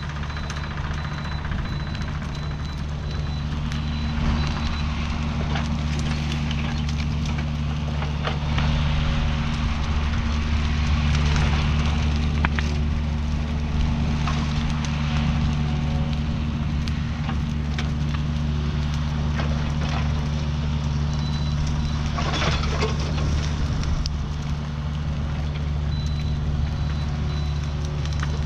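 Mini excavator's diesel engine working steadily as it pushes a burning brush pile together. Scattered cracks and snaps come from the wood and fire. A high repeating beep sounds near the start and again near the end.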